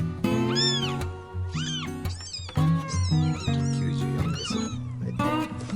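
Newborn kittens, about five days old, mewing repeatedly in short, high, arching cries, several in quick succession. Background music with steady chords plays underneath.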